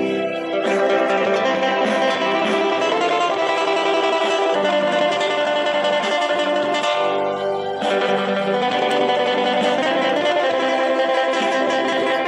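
Background music led by plucked guitar, playing steadily.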